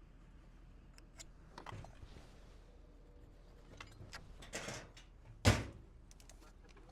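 Tools and lumber being handled on timber roof framing: scattered light clicks and a couple of short scrapes, then one sharp knock about five and a half seconds in.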